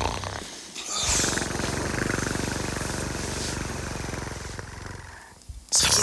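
A long, rattling snore drawn out over about four seconds and fading away, then a loud, sudden noise near the end.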